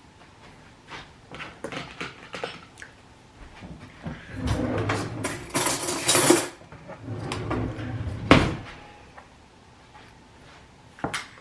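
Kitchen handling noise: scattered knocks and clinks of dishes and utensils, busiest about halfway through, with a sharp knock a little after eight seconds and another near the end.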